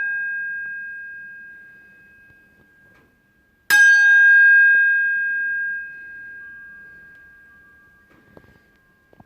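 An old steel paint scraper blade set ringing with a clear, bell-like tone. A ring already sounding fades away, then the blade is hit sharply again about four seconds in and rings out long, fading over several seconds.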